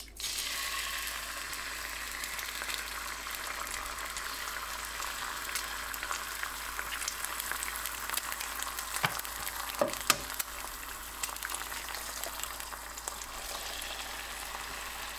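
Egg whites sizzling as they fry in hot butter in a frying pan, the hiss starting suddenly as the first egg goes in and then holding steady. A couple of sharp clicks come through the sizzle a little past the middle.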